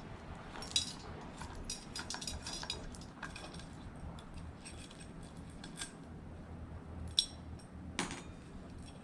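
Scattered light metallic clicks and clinks of hand tools and small parts being handled while a ceiling fan is taken apart, with a few sharper knocks about a second in and near the end.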